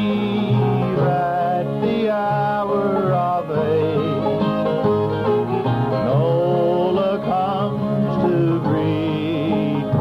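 Live old-time string band playing an instrumental passage, with banjo picking under lead lines that slide and bend in pitch.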